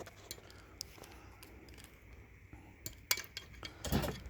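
Light metallic clicks and taps of small pliers working the slotted spring clip of a pop-up canopy leg's push button, scattered through, with a short louder scuff near the end.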